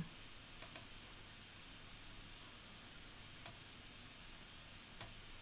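A few faint computer mouse clicks over near silence: two close together about half a second in, then single clicks later on, made while setting up a screen share.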